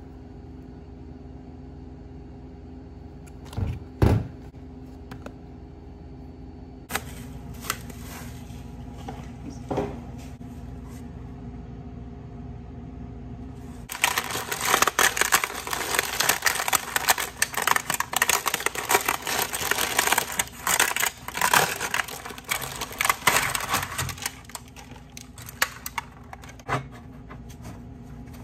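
A steady low hum with a couple of knocks early on. About halfway in, a plastic bag of ladyfinger biscuits crinkles and rustles loudly for around ten seconds as it is handled and opened with gloved hands. Then a few light taps as the biscuits are set in a stainless steel pan.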